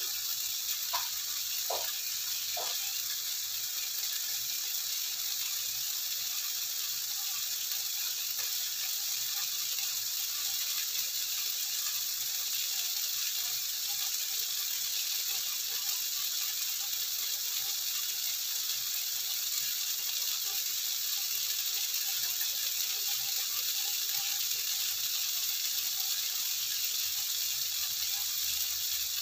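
Beef and steamed eggplant pieces sizzling steadily in oil in a nonstick wok as they sear, with a few light ticks in the first few seconds.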